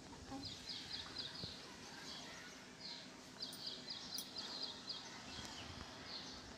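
A small bird chirping in quick runs of short high notes, the longest run a little past the middle, over a faint steady low hum.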